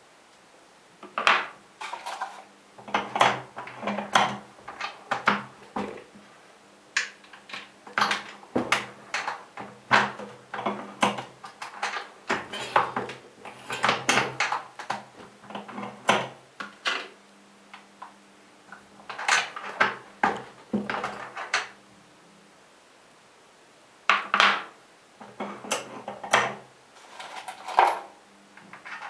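Lee four-hole auto-indexing turret press being worked to reload 9mm Luger cartridges: irregular metallic clicks and clunks from the handle strokes and the indexing turret, in clusters with two short pauses.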